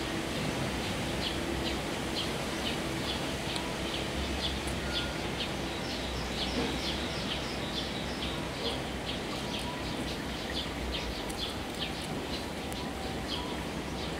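A bird chirping over and over, short high chirps about two a second, over a steady background hiss.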